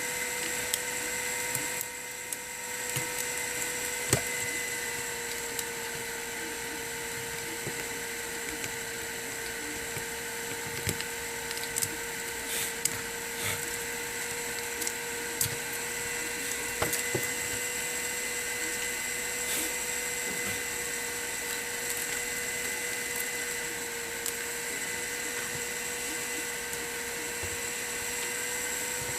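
A steady high electric whine from a small running motor, with many light clicks and snaps of hand tools working on a phone's parts.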